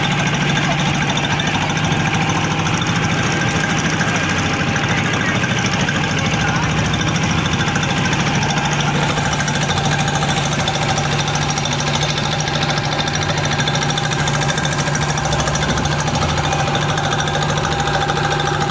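Motor fishing boat's engine running steadily with a fast, even knocking beat, holding one pitch throughout.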